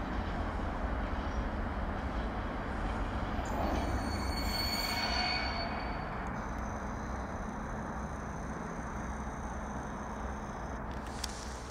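Freight train rolling through the station, its wagons rumbling steadily on the rails, with a brief high wheel squeal about four to five seconds in. The rumble dies down slowly over the last few seconds.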